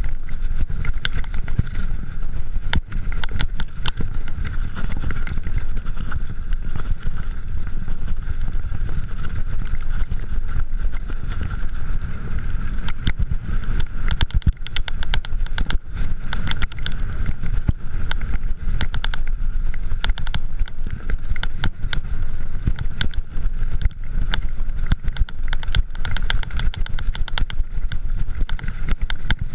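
Mountain bike riding fast down a dirt trail: a steady rumble of tyres and wind on the camera microphone, with frequent sharp rattles and knocks as the bike goes over bumps.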